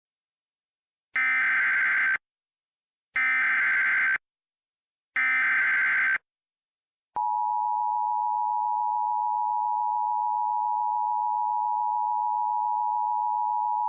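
Emergency Alert System opening: three one-second screeches of SAME header data, about a second apart, then about seven seconds in the steady two-tone EAS attention signal (853 and 960 Hz) begins, marking the start of a tornado warning alert.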